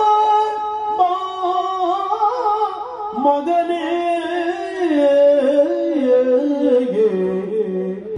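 Yakshagana bhagavata singing one long, drawn-out melismatic phrase of a padya. The melody winds up and down and sinks lower toward the end.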